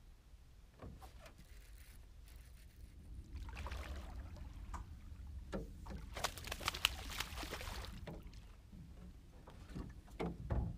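A hooked largemouth bass thrashing and splashing at the water's surface beside a small boat, the splashing loudest about six to eight seconds in. A few sharp knocks and a low thump near the end as the fish is handled.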